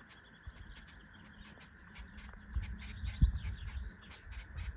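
Wild birds chirping and singing, a dense run of short high calls, over a steady outdoor hiss. Low rumbling thuds come in about halfway through, the loudest a little after three seconds.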